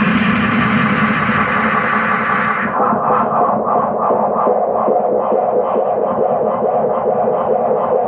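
1963 Fender Ecco-Fonic solid-state tape echo unit driven into its own feedback, a dense noisy, distorted wash. About three seconds in the top end drops away suddenly and it settles into a steady pulsing of repeats, about three a second.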